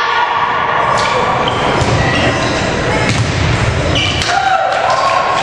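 A volleyball being struck during a rally, several sharp hits over a few seconds, with players' voices calling, echoing in a large gymnasium.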